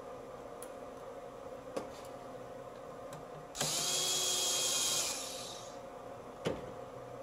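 A cordless power tool runs in a single burst of about a second and a half, a steady motor whine that then winds down as it spins a fastener out. A couple of short sharp knocks come before and after it.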